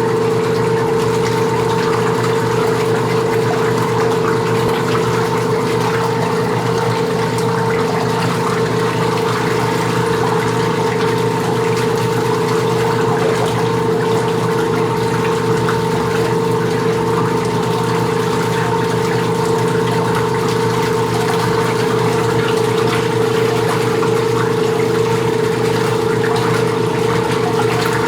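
Latina LA551 semi-automatic washing machine running while rinsing a load: a steady motor hum with a strong mid-pitched tone over a haze of water noise.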